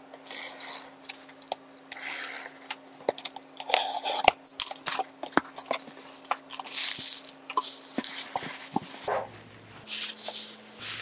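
Plastic air-cushion packaging and bubble wrap being handled and pulled out of a cardboard parcel, crinkling and rustling with many sharp crackles, over a faint steady hum.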